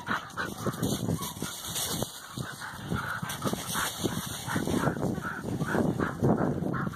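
Standard poodle puppies playing, scuffling through grass and dry leaves with an irregular rustle, along with a few short puppy vocal sounds.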